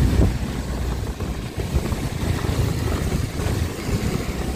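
Low, steady rumble of a vehicle on the move, with wind buffeting the microphone.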